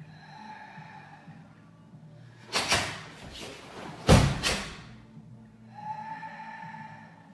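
Karate gi snapping sharply with fast strikes and kicks of a kata: two quick double cracks about a second and a half apart, the second pair the louder.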